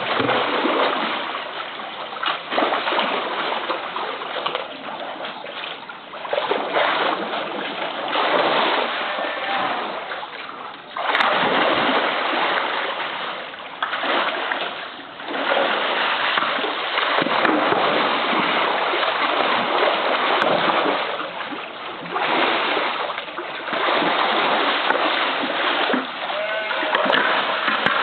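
Polar bear splashing and thrashing about in a pool while playing with a float. The water churns in repeated heavy surges, louder from about eleven seconds in.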